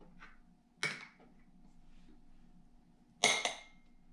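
Two clinks of tableware, a mug and spoon or a cup set down: one about a second in, and a louder one near the end that rings briefly.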